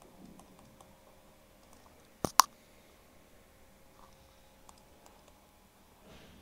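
Light, scattered taps of a stylus on a tablet screen during handwriting. A little over two seconds in come two sharp, much louder clicks in quick succession.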